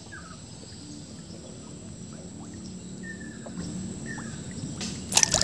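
Quiet waterside ambience with a low steady hum and a few short, faint bird chirps. Near the end a run of sharp clicks starts: the fishing reel being worked as the angler strikes at a bite.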